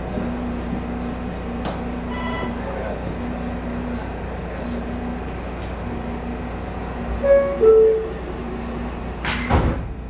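Interior noise of an R160A-Alstom subway car with the HVAC off: a steady low running hum with a low tone that cuts in and out. Two short louder tones come a little past the middle, and a sharp clank comes shortly before the end.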